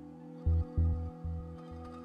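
Ambient background music: sustained held tones over a pulsing low bass.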